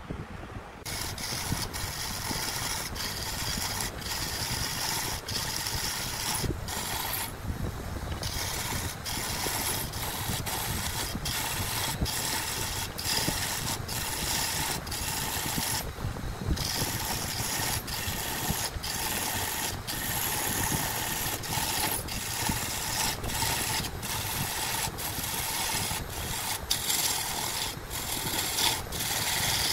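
A turning tool cutting into a spinning segmented wood blank on a wood lathe, throwing off shavings: a steady scraping hiss with frequent brief breaks, and two longer pauses about seven and sixteen seconds in.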